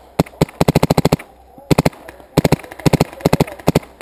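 Paintball marker firing: sharp pops in fast strings of several shots a second, with short pauses between strings.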